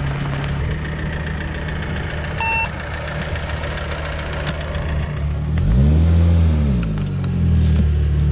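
A vehicle engine idling steadily, with one short electronic beep a couple of seconds in. Past the middle, an engine revs up and back down over about a second and a half, then rises again near the end.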